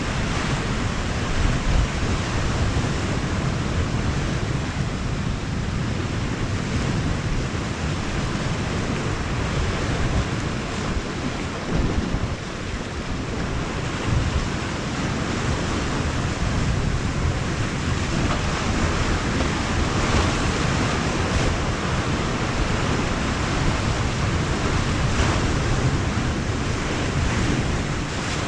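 Sea surf and wind, with gusts rumbling on the microphone.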